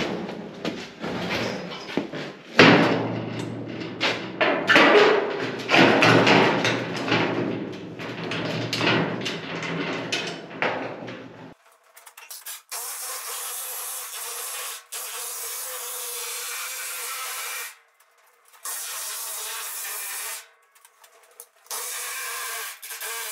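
A steel car hood being shifted on its stand with irregular clanks and knocks, then, from about halfway, an air-powered planishing hammer running in three long bursts of steady rapid hammering with short stops, smoothing the welded edge of the hood.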